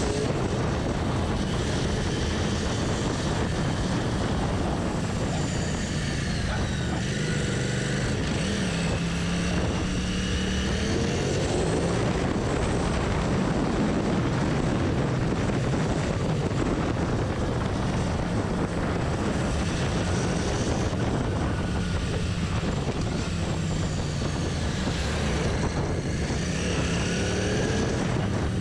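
Royal Enfield Continental GT650's 648 cc parallel-twin engine running at highway cruising speed, with steady wind rush over the moving bike. The engine note rises and falls a few times with the throttle.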